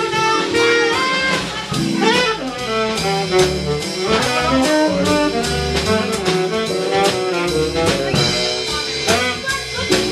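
Live jazz: a tenor saxophone solos in quick, winding runs over upright bass and drums with a steady cymbal beat.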